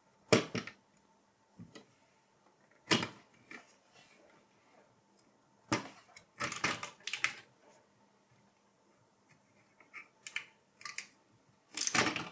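Scattered clicks, knocks and short scrapes of a mini PC's motherboard being worked loose and lifted out of its sheet-metal case. A dozen or so short handling noises come at irregular intervals, with a denser run of them a little past the middle and a loud one near the end.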